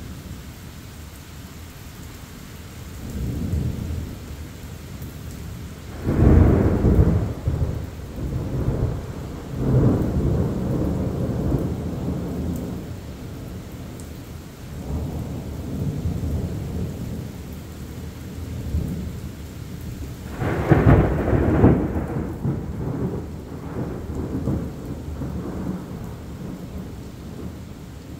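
Thunderstorm: several rolls of thunder rumble over steady rain. The two loudest peals come about six seconds in and about twenty seconds in, with weaker rumbles between them.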